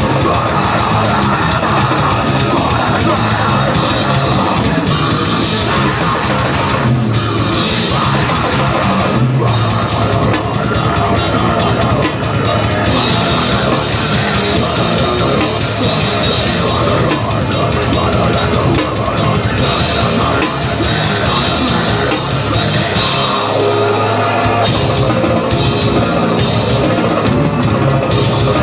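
Grindcore band playing live, loud and fast: drum kit with distorted bass and guitar, dense and unbroken throughout.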